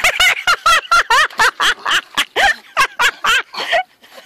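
High-pitched laughter in rapid, helpless bursts, about five a second, with a short break near the end.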